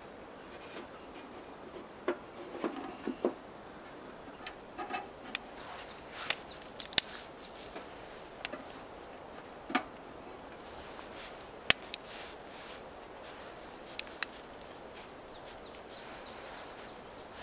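Irregular sharp cracks and snaps of dry kindling at a small titanium wood-burning stove as the fire is being got going, with rustling of sticks being handled a couple of seconds in.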